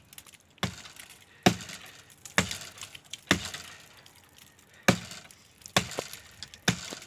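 An axe chopping into a tree branch: seven sharp wooden strikes, about one a second, with a short pause midway.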